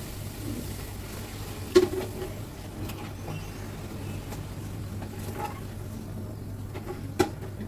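Steady low hum with a few sharp clinks and knocks of kitchen utensils, the loudest about two seconds in and another near the end.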